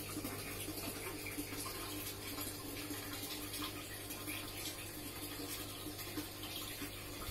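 Water running steadily, with a steady low hum underneath.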